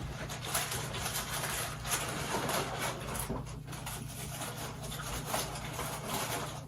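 Close-miked eating noises: irregular crinkling and rustling of takeout food wrappers and chewing, over a low steady hum.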